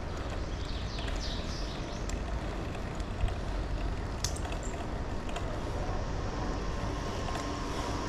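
Steady wind rumble on the microphone while riding a bicycle over rough asphalt, with tyre and road noise and a few sharp clicks and rattles from the bike, the loudest about three seconds in.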